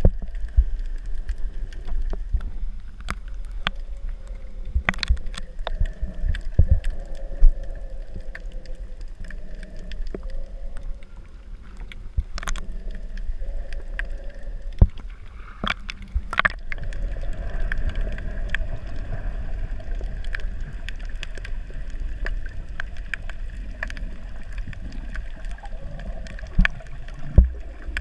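Muffled underwater noise: a steady low rumble with scattered sharp clicks and knocks.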